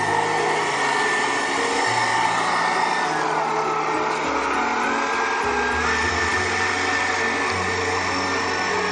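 Small electric motors whining steadily, their pitch dipping about three seconds in and climbing back about two seconds later as the throttle changes, over background music. These are the bait boat's twin 540 motors and gear drives.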